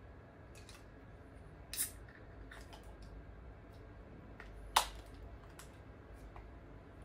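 An aluminium beer can handled at close range, its ring-pull fiddled with: scattered small clicks and taps, with a sharper click about two seconds in and the loudest, sharpest click about five seconds in.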